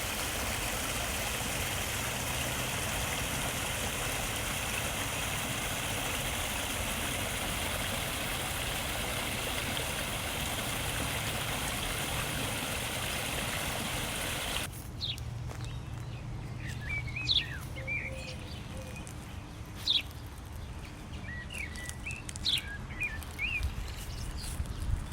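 Steady rush of flowing stream water, cutting off suddenly about fifteen seconds in. Then birds chirping in short, scattered calls over a faint low rumble.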